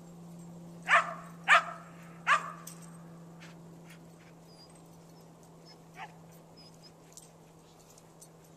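Dog barking: three sharp, loud barks in quick succession about a second in, then a single fainter bark about six seconds in.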